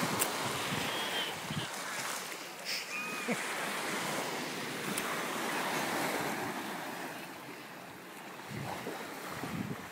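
Gulf surf washing up the beach in a steady wash that swells and eases, with wind buffeting the microphone.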